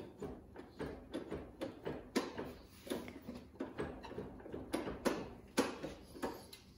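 Irregular light clicks, taps and knocks, a few a second, of metal parts handled during hand work on a motorcycle's rear brake while it is being bled.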